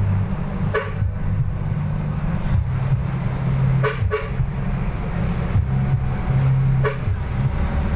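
Vehicle engine and road rumble heard from inside the cabin, with four short horn toots: one about a second in, two close together around four seconds, and one near the end.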